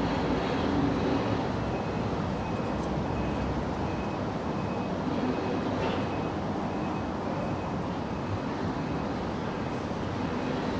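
Steady low background rumble like distant traffic, with a faint high tone pulsing on and off.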